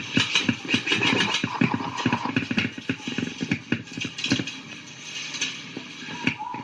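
Airsoft game sounds: a rapid, irregular string of sharp knocks and clicks, several a second, over a steady hiss.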